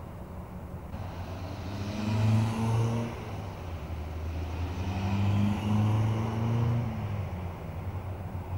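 Road traffic: a vehicle passes about two seconds in and another, longer pass follows around five to seven seconds, each swelling and fading over a steady low hum.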